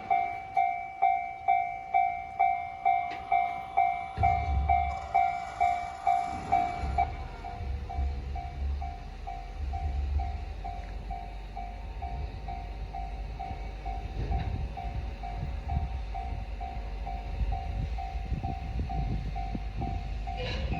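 Japanese railway level-crossing warning bell with the JR standard electronic tone, a two-note ding pulsing about twice a second. From about four seconds in a train rumbles through the crossing, and the bell sounds quieter under it.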